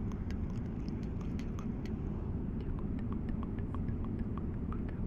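Steady low drone of an airliner cabin in flight, with a quick, even train of soft clicks, about four or five a second, on top.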